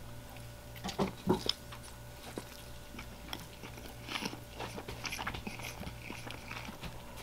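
A person chewing a mouthful of soft taco, with scattered soft mouth clicks, over a steady low hum.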